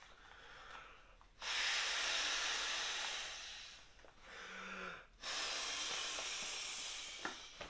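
Two long exhaled breaths blown by mouth into a Trekology ultralight inflatable pillow to fill it. The first comes about a second and a half in and the second after about five seconds, with a quick breath in between.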